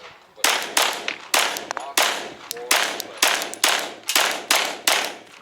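Rapid string of pistol shots from a Glock 17 in 9mm, about two to three shots a second, each a sharp crack with a short echo. The shooter is engaging steel targets against a timer.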